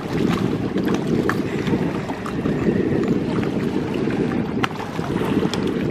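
Wind buffeting the microphone as a steady low rumble, with small scattered splashes of choppy lake water lapping at the moored boat and dock.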